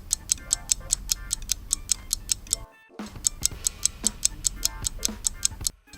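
Quiz countdown timer music: a steady clock-like ticking, about five ticks a second, over a low backing bed. It breaks off briefly twice, near the middle and just before the end.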